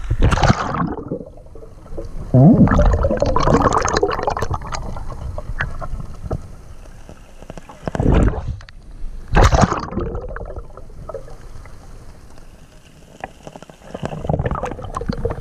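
River water splashing and gurgling around a camera as it is dipped below the surface, with muffled underwater sound between loud splashy bursts: one at the start, a longer one a few seconds in, two short ones past the middle and more near the end.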